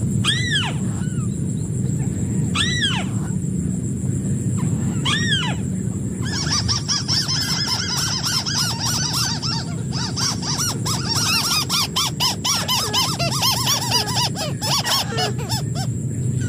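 White-browed crake calling: three separate nasal, arching notes a couple of seconds apart, then a fast chattering run of short notes from about six seconds in until near the end. A steady low background rumble and a thin high steady tone sit under the calls.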